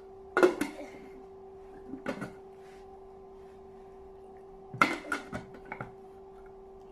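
Small plastic toys and a plastic jar being handled: a sharp knock about half a second in, a lighter one about two seconds in, and a cluster of clicks and clatters near five seconds, over a faint steady hum.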